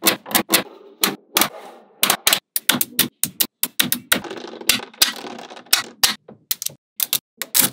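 Small magnetic balls clicking and snapping together as ball panels are handled and pressed into place: sharp irregular clicks several times a second, with a light rattling clatter between them.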